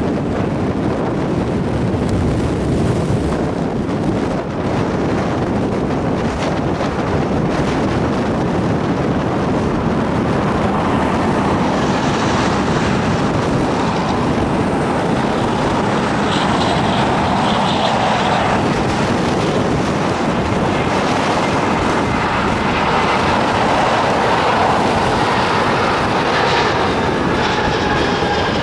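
Airbus A320 airliner's jet engines on final approach: a steady rumble, with an engine whine that comes in about halfway through and grows louder as the plane nears, all under rough gusty wind noise on the microphone.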